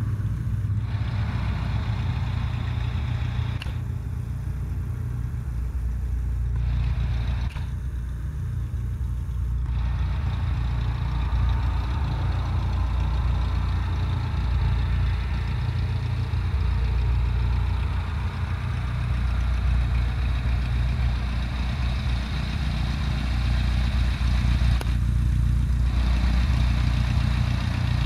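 Cessna 172 Skyhawk's piston engine and propeller running at low taxi power, a steady low drone.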